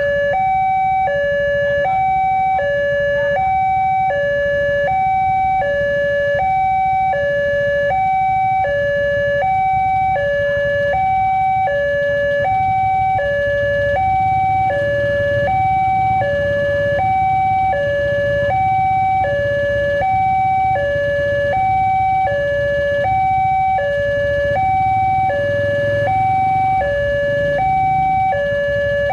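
Railway level crossing warning alarm sounding its two-tone signal, a higher and a lower tone alternating evenly and repeating without pause, while the crossing is closed for an approaching train.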